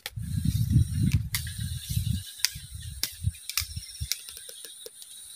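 Wind buffeting the microphone, a low rumble in the first two seconds, with scattered sharp clicks and a quick run of small ticks about four seconds in.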